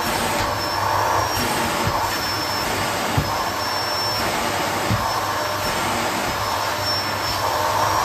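Bosch canister vacuum cleaner running steadily with a thin high motor whine, its hose sucking at the plush fabric of a house slipper, the suction note swelling and fading as the hose end moves over the fabric. A couple of light knocks about three and five seconds in.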